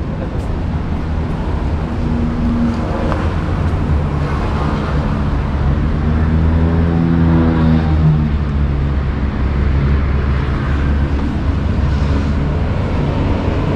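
Street traffic: a steady low rumble, with one motor vehicle's engine passing and loudest about seven seconds in.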